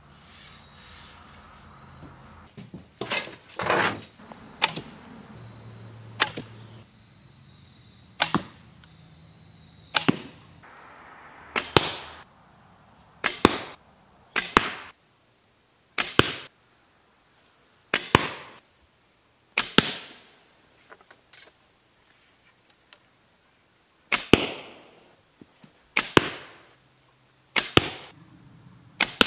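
Bamboo-and-sinew composite bow shot again and again: about fifteen sharp snaps of the string at release, each fading fast, one every second or two, with a pause of a few seconds about two-thirds of the way through.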